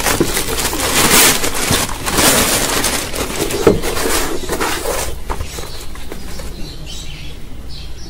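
Plastic courier mailer bag crinkling and tearing as it is ripped open and pulled off a cardboard box, with dense rustling for about the first five seconds, then quieter handling of the box.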